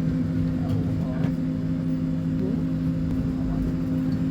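Scania K270IB bus's rear-mounted diesel engine running steadily at an even speed, a constant hum with no revving.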